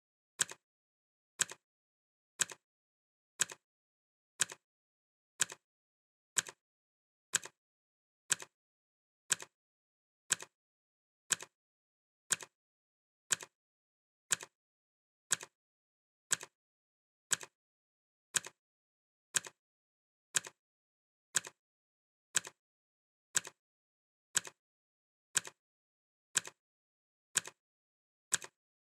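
Clock ticking sound effect, one tick a second, each tick a sharp click with a fainter second click right after it, in silence between.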